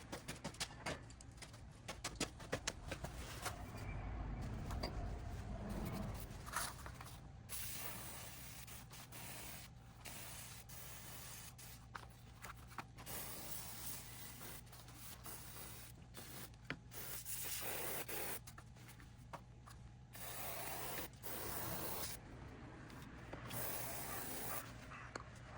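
Aerosol spray hissing in repeated bursts of a second or more, the cleaner or lubricant being sprayed into a motorcycle's mechanical speedometer cable, with small clicks and knocks of handling in between.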